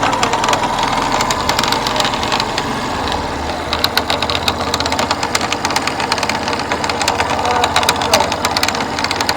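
Yamaha FZS V2's single-cylinder engine running with a rapid, rattling knock. The mechanic suspects a connecting-rod problem, with a loose magneto or clutch nut as other possible causes.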